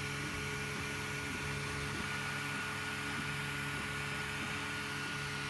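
Prusa i3 3D printer running a print: its stepper motors hum in low tones that jump to a new pitch every half second or so as the print head changes moves, over the steady hiss and whine of its cooling fans.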